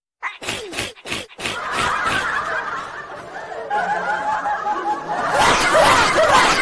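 Laughter in rapid, repeated bursts, starting just after the opening and getting louder about two-thirds of the way through.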